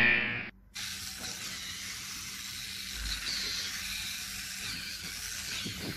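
Battery-powered toy monster truck running, giving a steady whirring hiss. It opens with the tail of a short buzzing tone that ends about half a second in.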